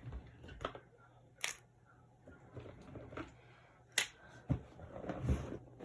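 Handling noise: a few sharp clicks and taps, with some rustling between them, as objects are picked up and moved. The sharpest click comes about four seconds in.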